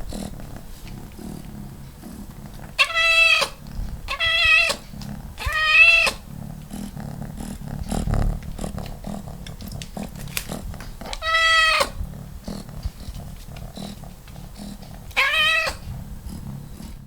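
Domestic cat meowing to beg for food: five drawn-out meows. Three come close together in the first half, then two more are spaced well apart, over a low steady background noise.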